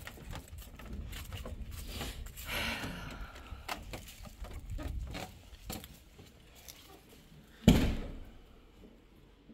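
Footsteps on a wooden deck and a door being opened, then one sharp, loud thump near the end.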